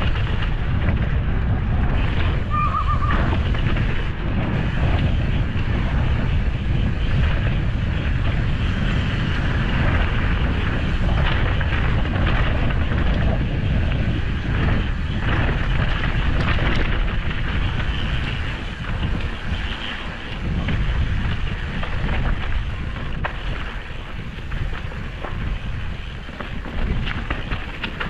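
Wind buffeting the bike-mounted action camera's microphone as a downhill mountain bike runs down a dirt singletrack, tyres rolling and the bike rattling over bumps with many small knocks. It eases off somewhat in the last third.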